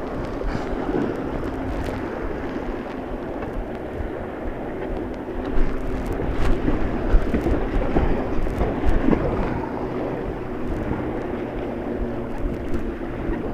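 Steady rush of white water close to a kayak-mounted camera, with wind on the microphone and a few knocks and splashes from the paddle and hull, busier for a few seconds around the middle.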